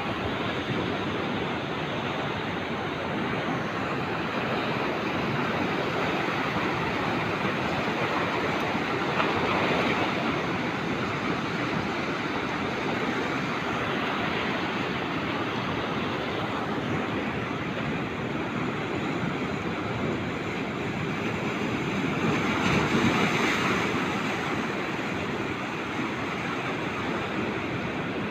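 Sea surf breaking and washing over shore rocks, a steady rush that swells louder about ten seconds in and again around twenty-three seconds.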